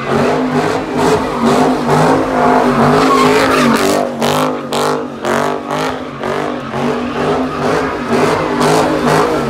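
A car engine revving hard in quick repeated bursts, its note rising and falling.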